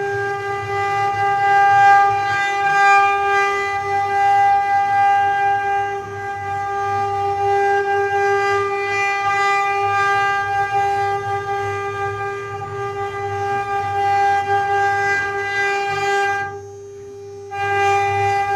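Mini CNC engraving machine's spindle motor running at constant speed, a steady high whine with a low hum beneath it. The sound cuts out for about a second near the end, then resumes.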